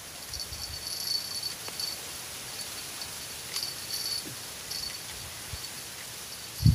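Insects chirping in repeated high-pitched bursts that come and go. A low rumbling burst starts right at the end.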